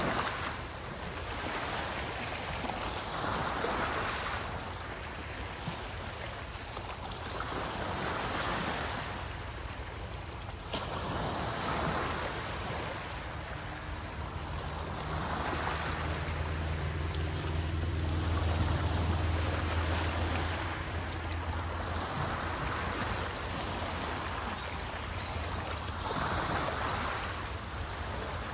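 Waves breaking on the shore, each swell of surf rising and falling about every four seconds. In the middle a low engine hum builds and fades away, passing at a distance.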